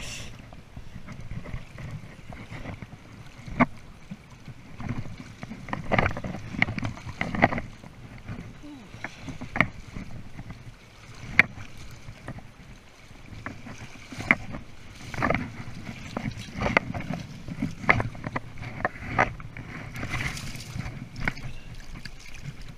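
Shallow river water splashing and sloshing around a landing net as an Atlantic salmon grilse is netted, with irregular sharp splashes and knocks throughout.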